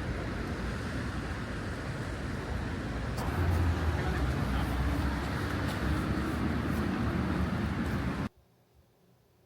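Steady rumbling noise of a moving vehicle, louder and deeper from about three seconds in, with a few faint clicks. It cuts off suddenly just past eight seconds, leaving near silence.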